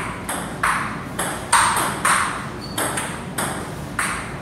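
Table tennis rally: a celluloid ball clicking off the paddles and bouncing on the table, a rapid, regular stream of sharp pings about three a second, every other one louder. A steady low hum runs underneath.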